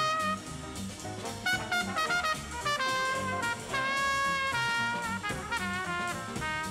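Jazz combo music: a horn plays the melody in held and moving notes over a pulsing bass line.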